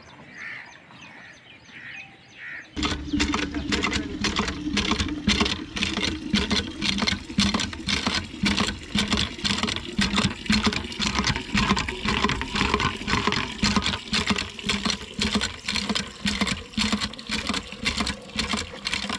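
Hand pump being worked, its handle and plunger clanking and knocking in a fast, rough rhythm while water gushes from the spout onto the concrete. It starts sharply about three seconds in, after a few quiet seconds.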